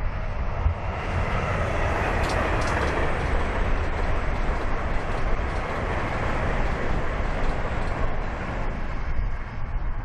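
Great Western Railway Intercity Express Train passing at speed: a rush of wheel and rail noise that swells over the first couple of seconds, stays loud through the middle and eases off near the end.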